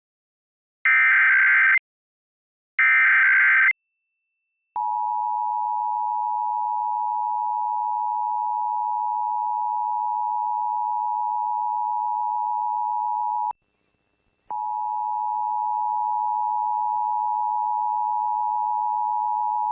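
Emergency Alert System Required Monthly Test tones: two short bursts of SAME header data about a second apart, then the EAS two-tone attention signal (853 and 960 Hz) held steady for about nine seconds. The attention signal breaks off for about a second and starts again.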